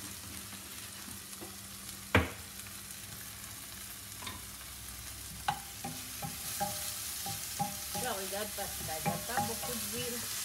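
Sliced onions frying and sizzling in a little oil in a non-stick frying pan, with a wooden spoon stirring and scraping them about. A sharp knock comes about two seconds in.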